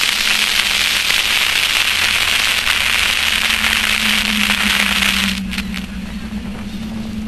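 2001 Chevrolet Cavalier Z24 on the move: loud rushing, crackling wind buffeting on the microphone, which falls away about five seconds in as the car slows, leaving a steady low hum.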